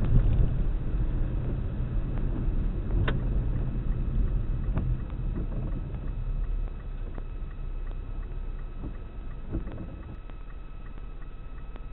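Car road and engine rumble heard from inside the car through a dashcam microphone. It gets quieter about halfway through as the car eases off. A sharp knock comes about three seconds in, and there are faint ticks in the second half.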